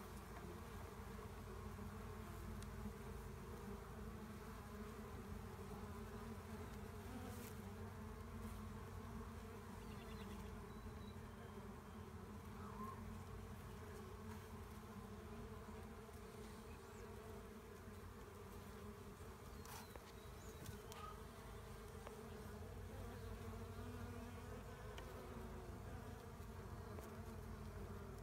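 A honeybee swarm buzzing as a steady, low hum.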